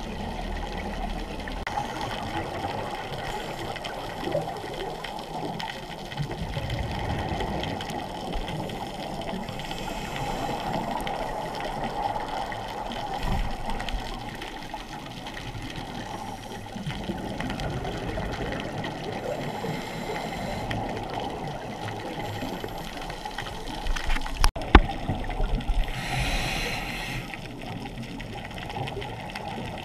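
Muffled underwater noise picked up by a diving camera in its housing, a steady watery wash. About three-quarters of the way through comes one sharp click with a few louder knocks and a short hiss around it.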